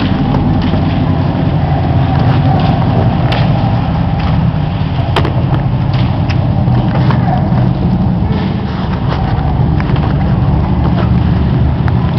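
Steady low rumble of handling and movement noise on a rifle-mounted airsoft guncam, with scattered sharp clicks and knocks through it.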